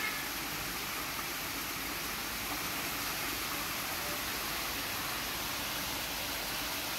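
Steady rush and splash of water in a koi pond fed by a small rock waterfall.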